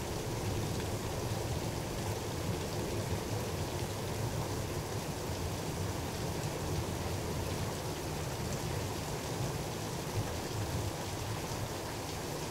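Steady rain falling in a thunderstorm: an even, continuous hiss with a low rumble beneath it.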